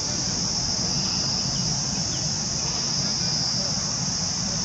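Steady high-pitched insect chorus, a continuous drone without a break, over a low steady rumble.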